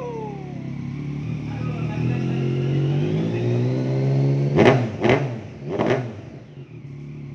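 Yamaha MT-09's 847 cc inline-three engine with an Akrapovic exhaust, revved slowly up and held, then blipped hard three times in quick succession before dropping back to idle.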